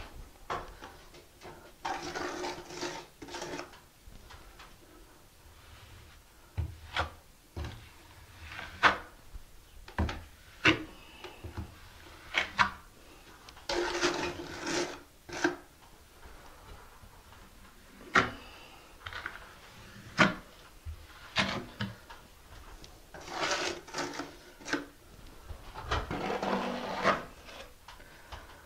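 Notched trowel scraping thin-set mortar across cement board in several rasping strokes a second or two long, with scattered clicks and knocks of the trowel and tools between.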